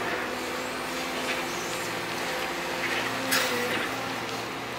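Liebherr R926 crawler excavator's diesel engine running steadily, with its hydraulics working as the boom and stick reach out. A short sharp clank a little over three seconds in.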